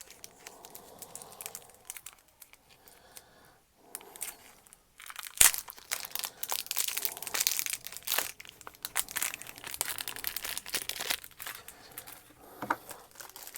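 Plastic packaging crinkling as it is handled: light rustling at first, a sharp snap about five seconds in, then several seconds of dense crinkling that tails off near the end.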